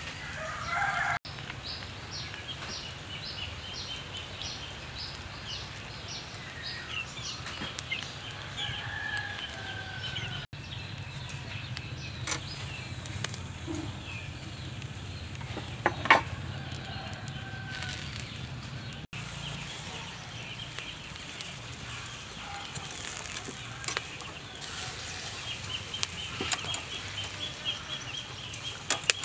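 Chickens clucking in the background, with runs of short, quick chirps and a few sharp clicks.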